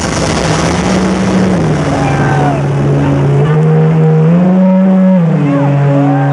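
Deep electronic synth drone played loud over an arena sound system, holding low notes that step up and down in pitch every second or two. Crowd whistles and cheers cut through above it.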